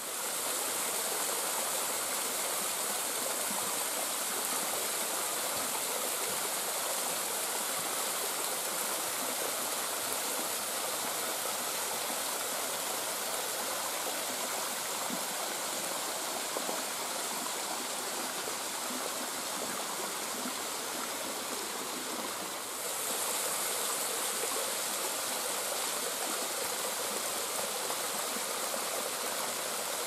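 Small waterfall splashing down a mossy rock face: a steady hiss of falling water that dips briefly about two-thirds of the way through and comes back a little louder.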